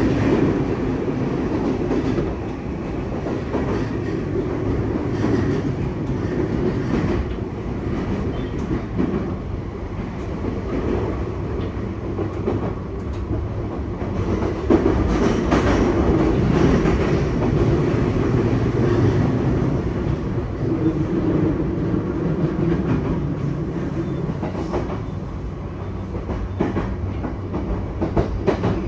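Running noise heard inside an E235-1000 series electric train car: a steady rumble of wheels on rails, with scattered clacks over the rail joints.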